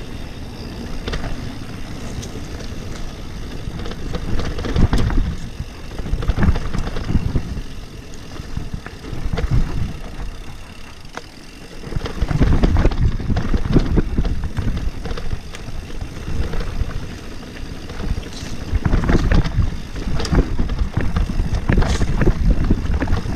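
E-mountain bike riding fast down a dirt forest trail: wind buffeting the camera microphone, tyres rumbling on the dirt and the bike rattling and knocking over bumps. It gets louder about halfway through.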